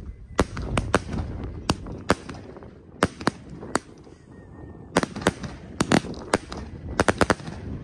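Fireworks going off: a fast, irregular run of sharp bangs and cracks as rockets launch and burst, coming thickest in the second half.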